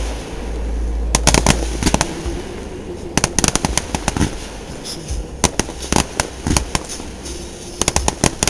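Aerial fireworks display: a deep rumbling boom in the first second or so, then repeated clusters of sharp bangs and crackles as shells burst.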